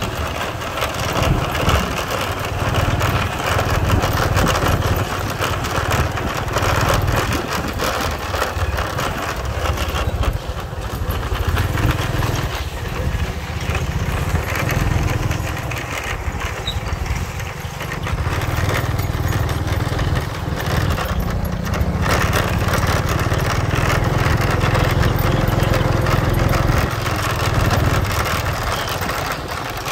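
Small motorcycle engine running at low speed along a rough path. Its low hum swells and eases as the throttle changes, over a constant noisy hiss.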